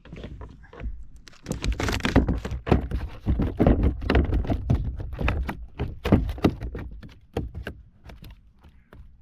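A rapid, irregular flurry of hard knocks and thuds on the kayak, heaviest in the middle and thinning out near the end.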